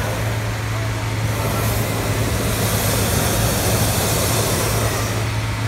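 Hot-air balloon inflator fans running with a steady engine drone, under a propane burner blast that rises from about two seconds in and stops about five seconds in.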